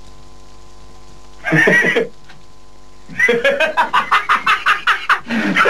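A brief vocal cry about a second and a half in, then a burst of rapid, rhythmic laughter, about six pulses a second, starting near the middle.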